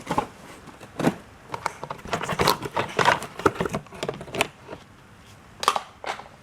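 Box being unpacked: an irregular clatter of stainless-steel frame pieces knocking and clinking together, with packaging rustling in between.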